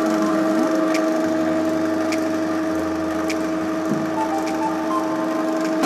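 OSSEL ML-600 electric vegetable chopper running with a steady motor hum while shredding potatoes, with faint knocks about once a second; the motor stops at the very end.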